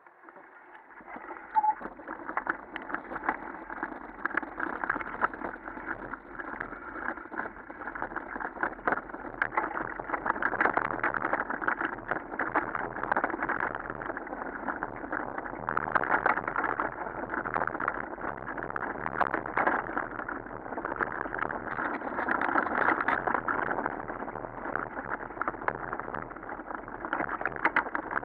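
Wind buffeting the microphone, with gravel crunching under bicycle tyres and the bike rattling over a rough dirt track as a mountain bike rolls downhill. It builds up over the first couple of seconds as the bike gets going, then stays loud with many sharp knocks from the bumps.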